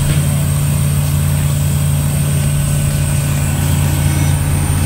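Light aircraft's piston engine and propeller droning steadily at cruise, heard inside the cockpit, with a constant hiss of airflow.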